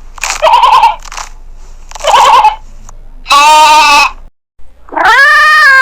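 Bleating livestock: two short bleats with a quick quaver in the pitch, then a longer, steadier bleat. Near the end, after a short break, comes a longer drawn-out call whose pitch rises and then falls.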